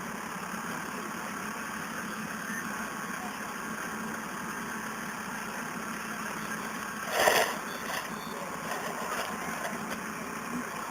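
Steady background hum with no singing, broken once by a short loud burst about seven seconds in.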